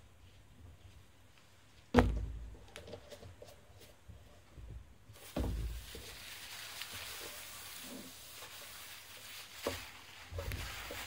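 Objects knocked down onto a wooden tabletop, with a sharp knock about two seconds in and a duller thump a few seconds later, then cloth or paper towels rustling as they are folded and gathered up, over a steady hiss.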